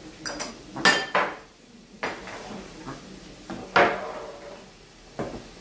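Kitchenware clanking: a stainless steel mixing bowl and a frying pan knocked and set down, about six sharp knocks, the loudest about a second in and just before four seconds.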